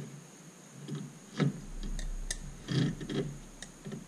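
Metal clicks and knocks as a brake master cylinder and its metal lid are handled and set onto the power brake booster: several separate taps, the loudest about a second and a half in and a quick cluster near three seconds.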